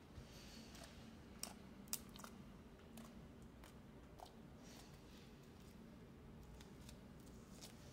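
Faint sticky clicks and small pops of homemade slime being squeezed and stretched by hand, coming at irregular moments.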